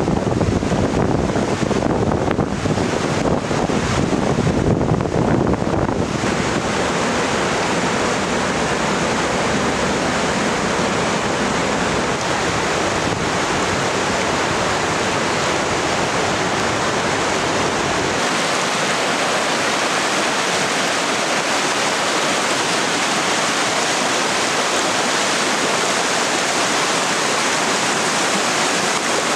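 Rushing water of a forest waterfall and mountain river, a steady rush with no pauses. It is deep and heavy for the first six seconds, then brighter and hissier, and it loses its lowest rumble a little past the middle.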